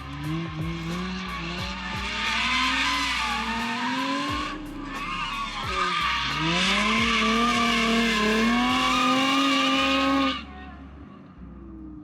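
Nissan 350Z's naturally aspirated 3.5-litre V6, on a 3.5 final drive, revving hard through a drift with tyres squealing. The revs climb, drop sharply about four and a half seconds in, climb again, and fall away near the end as the throttle comes off.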